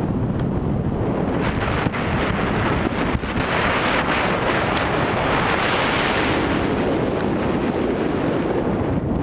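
Wind rushing over the camera microphone during a tandem parachute descent under an open canopy: a steady rumbling hiss that swells for a few seconds in the middle, with a couple of faint knocks near the start.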